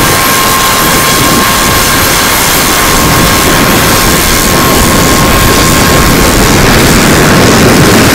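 Strong wind rumbling and buffeting a small camera's built-in microphone, mixed with small waves washing onto a pebble beach. A faint steady high tone sits under the noise and fades out near the end.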